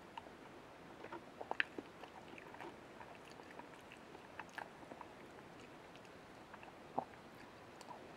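Quiet chewing: soft, scattered mouth clicks and smacks as a person eats nira-tama (chive and egg stir-fry), with a little cluster about one and a half seconds in and a single sharper click near the end.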